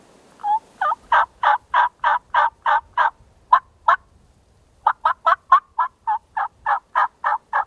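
Wild turkey yelping: two runs of about a dozen short, evenly spaced yelps, three to four a second, with a pause of about a second between them.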